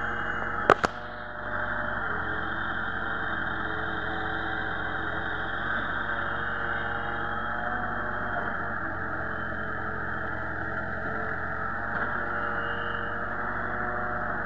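Mini excavator engine running steadily as the machine digs soil. Two sharp knocks close together about a second in, followed by a brief dip in the engine sound.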